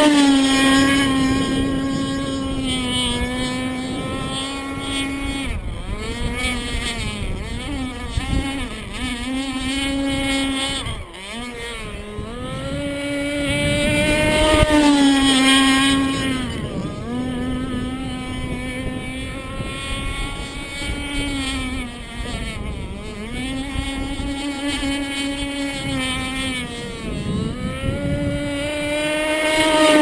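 Radio-controlled catamaran race boat running at speed, its motor a steady high note with many overtones. The pitch sags and recovers several times as the boat turns and throttles back, and the sound is loudest as it passes close, at the start, about halfway through and at the end.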